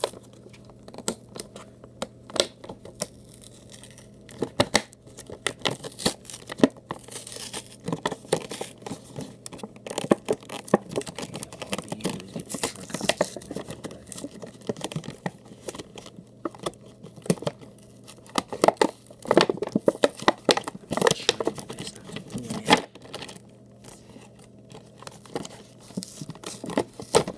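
Cardboard-and-plastic toy packaging being opened by hand: irregular tearing, crinkling and sharp little clicks as it is worked open piece by piece.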